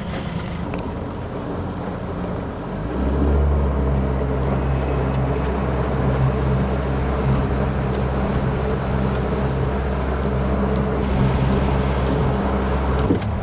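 Boat's outboard motor running low and steady, then throttled up about three seconds in and holding a steady, louder run as the boat gets underway.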